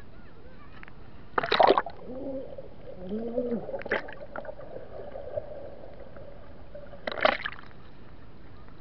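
Water splashing as a waterproof action camera plunges under the sea surface about a second and a half in, then muffled underwater sound with a steady hum, and a second splash as it breaks back out near the end.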